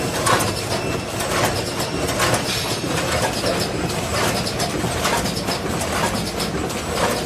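Potato chip packing machine with combination weigher running: a steady mechanical clatter broken by irregular clicks and knocks several times a second.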